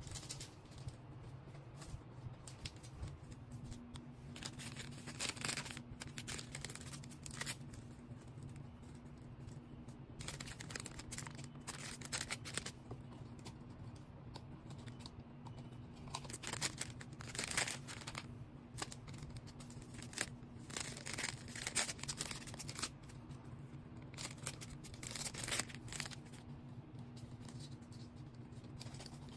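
Packing by hand: irregular rustling, crinkling and tearing of wrapping material, with cutting and handling noises, over a low steady hum.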